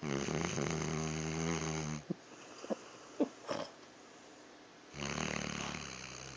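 A dog snoring loudly in its sleep: two long, pitched snores, one at the start and another about five seconds in, with a few short snorts and clicks between them.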